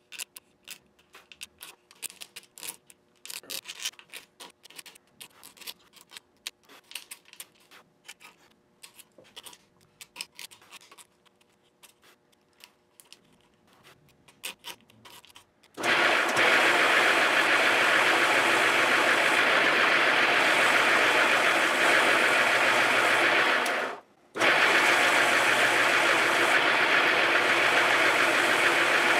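Faint, scattered scratchy clicks of a razor blade scraping glue residue off a fingerboard between the frets. About halfway through, a disc sander starts running loud and steady, with a brief gap near the end.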